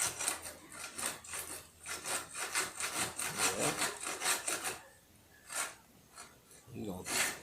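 Hand saw cutting wood in quick back-and-forth strokes, about four a second, stopping about five seconds in, then a couple of single strokes near the end.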